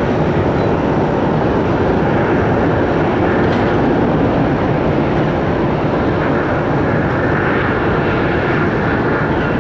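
Jet engines of an Airbus A321 airliner on its landing, a loud, steady rushing roar.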